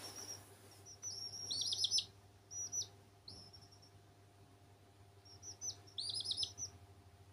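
Domestic chicks peeping: short, high, downward-sliding cheeps in two quick runs, one about a second in and another near six seconds, with single peeps in between.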